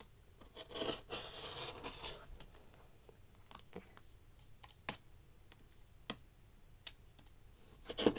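Fiskars rotary cutter rolling along the edge of an acrylic ruler, slicing through layered cotton t-shirt fabric on a cutting mat. It makes a scratchy rasp about a second in and again near the end, with a few light clicks in between.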